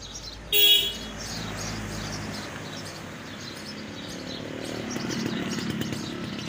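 Outdoor ambience: a motor vehicle engine running, growing a little louder near the end, with birds chirping throughout. A brief loud pitched tone sounds about half a second in.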